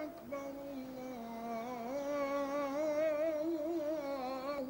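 A single unaccompanied voice singing a slow, ornamented line, holding notes and sliding between them, with a wavering vibrato in the second half.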